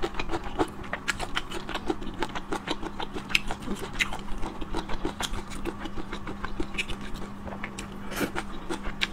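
Close-miked eating of chewy stir-fried sea snail strips: irregular wet chewing and mouth clicks, with chopsticks tapping on the plate, over a faint steady hum.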